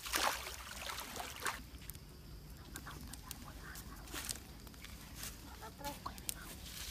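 Water splashing as bare feet wade through a shallow stream for about the first second and a half. Then it goes quieter, with scattered sharp snaps and a few brief voice-like sounds near the end.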